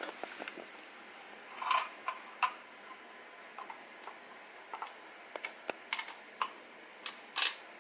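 Scattered light clicks and knocks of hand tools and parts being handled during motorcycle assembly work, a few louder ones about two seconds in and near the end.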